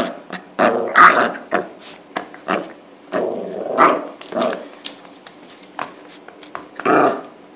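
Small dog growling and yapping in play, in short repeated bursts, while it mouths and wrestles a person's hand.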